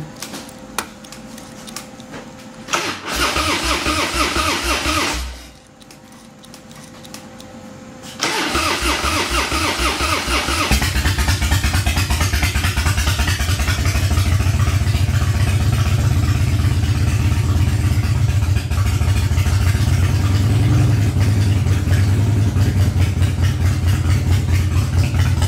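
Harley-Davidson V-twin engine being cranked. A first try about three seconds in does not catch; a second try about eight seconds in catches near eleven seconds, and the engine then runs at a steady idle. The bike has sat unused for a while.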